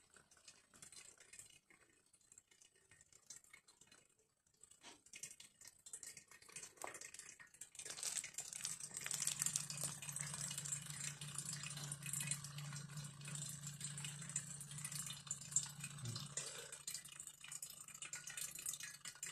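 Small battery-powered dispenser pump running with a steady low hum and a crackly hiss of liquid moving through its tubing, drawing spirit from a jar into a charcoal filter. It becomes audible about eight seconds in; before that there are only faint clicks.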